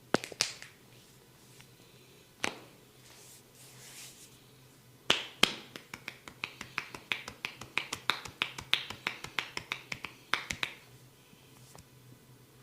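A barber's hands striking a head during a head massage. A few single sharp pops come first, then a fast run of crisp taps, several a second, for about five seconds.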